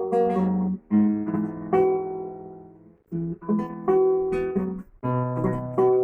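Acoustic guitar playing an instrumental intro, strummed chords in phrases with brief breaks about one, three and five seconds in.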